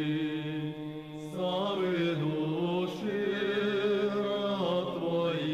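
Men's monastery choir singing Orthodox memorial-service chant unaccompanied, several voices in harmony holding long chords over a steady low bass note. The chord moves about a second in, again near the middle and once more near the end.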